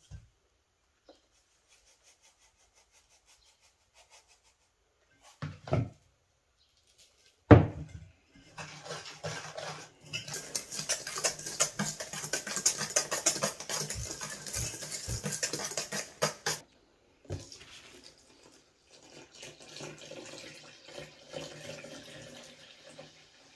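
A few knocks, then a wire whisk beating batter hard in an enamel bowl, a fast clatter of wire against the bowl for about eight seconds. It stops suddenly, and milk is poured into the bowl with a softer, steady liquid sound.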